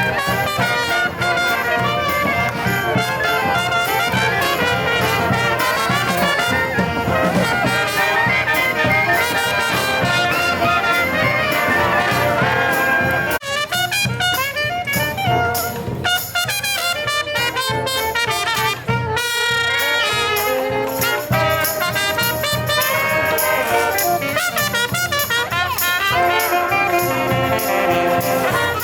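A street brass band playing, with trumpets and trombones carrying the tune. There is a brief break about halfway through, after which the playing continues more sparsely.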